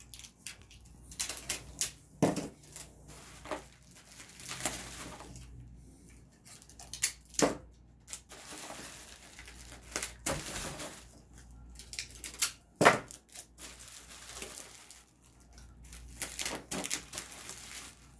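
Plastic bubble wrap rustling and crinkling as it is handled and wrapped around a small box, with irregular crackles and sharp clicks.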